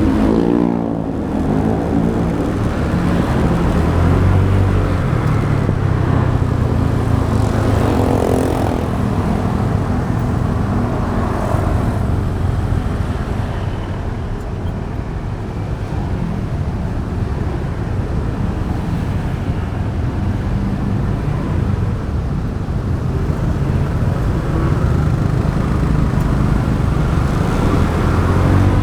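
Motorcycle engine running while riding, its pitch shifting with the throttle, over wind and road noise.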